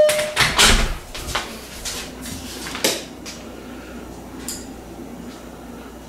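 A door being opened, with a loud clatter of clicks and knocks, followed by a few lighter knocks and bumps over the next two seconds.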